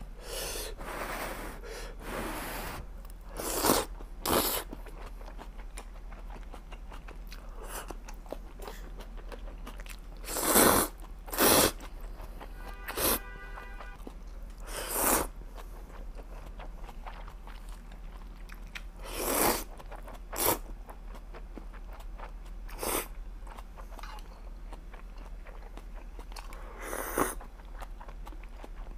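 A person eating ramen noodles from army stew with chopsticks: sharp slurps every few seconds, a dozen or so in all, with quieter chewing and mouth sounds between.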